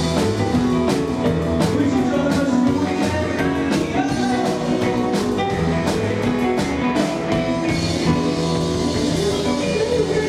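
Live 1950s rock 'n' roll band playing rockabilly on upright double bass, piano, guitar and drum kit. The drums keep a steady beat of about two sharp hits a second, which stops a little past the middle while the bass and piano carry on.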